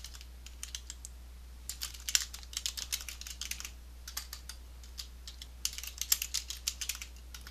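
Typing on a computer keyboard: several quick runs of keystrokes separated by short pauses.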